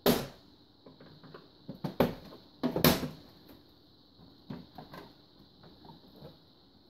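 Knocks and clicks of hands handling and pulling at the top cover of an XYZprinting Da Vinci 1.0A 3D printer, with sharp knocks at the start, about two seconds in and about three seconds in, then lighter taps.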